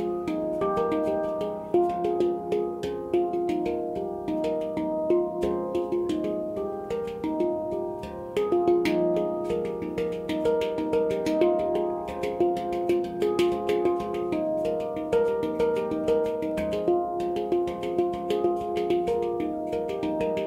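Handpan tuned to F minor played solo: a continuous flow of struck notes, each ringing on and overlapping the next, with quick light taps between the longer tones.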